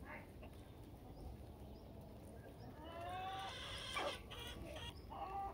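Chickens calling while they feed: one drawn-out, slightly rising call lasting about a second from around three seconds in, a sharp click just after it, and a shorter call near the end.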